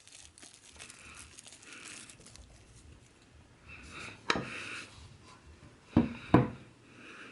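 Plastic cordless impact wrench being handled: soft rustling and rubbing, broken by three sharp knocks, one a little past halfway and two close together near the end.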